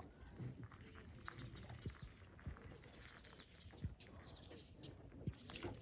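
Faint sounds of ducks dabbling in shallow lake water: soft splashes and knocks. Over them runs a scatter of short, high chirps from small birds.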